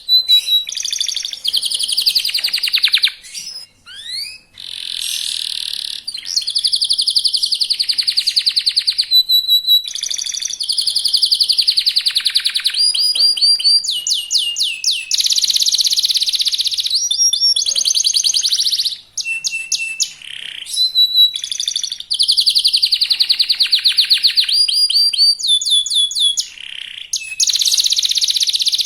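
Young local canary singing fast and continuously, in long trills of rapid repeated notes and quick sweeping phrases. The song breaks off briefly about four, nineteen and twenty-seven seconds in.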